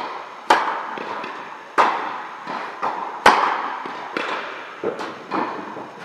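Tennis ball struck by rackets and bouncing on the court in a rally, a sharp pop every second or so, each followed by the echo of a large indoor hall. The hardest hit comes about three seconds in.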